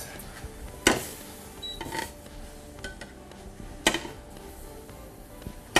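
A metal cooking utensil knocking and clinking against a grill pan and baking dish: four sharp clinks about one to two seconds apart, with a few lighter taps between them.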